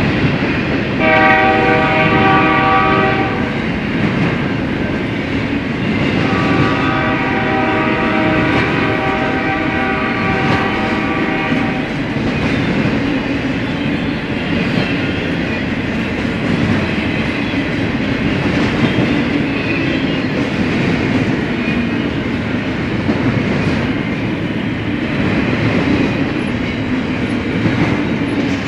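Westbound BNSF freight train led by locomotive 5147 passing: the air horn sounds a short blast about a second in, then a longer blast from about six to twelve seconds, over the steady rumble and clickety-clack of the train's wheels on the rails, which carries on after the horn stops.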